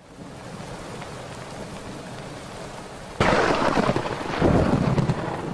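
Steady rain, then a sudden loud thunderclap about three seconds in that keeps rumbling, swelling again a second later.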